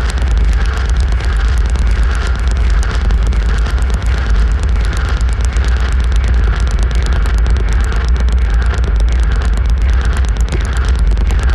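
Experimental electronic noise music played live: a loud, dense wall of distorted noise over a heavy bass rumble, with a crackling texture and a brighter hiss that throbs about every three-quarters of a second.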